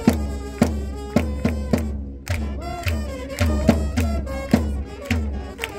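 Japanese baseball cheering section: trumpets playing a batter's cheer-song melody over a steady bass drum beat, with fans clapping and chanting along.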